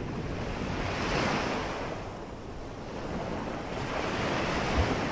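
Ocean waves breaking and washing in, with wind over them. The surf swells about a second in, eases off, then builds again toward the end.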